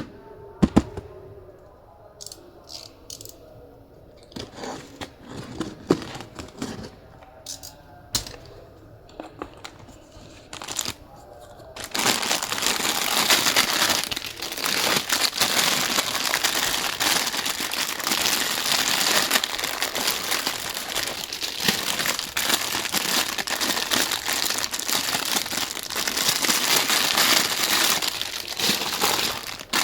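Scattered light clicks and knocks, then from about twelve seconds in a loud, dense crinkling and crumpling.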